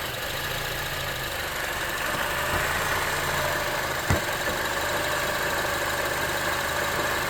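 Honda CR-V K24 engine idling while the radiator cooling fans start up about two seconds in, adding a steady whir over the idle, with a single sharp click about four seconds in. The fans are cycling on as the engine reaches temperature, part of a fault where the fans and A/C compressor switch on with the A/C off.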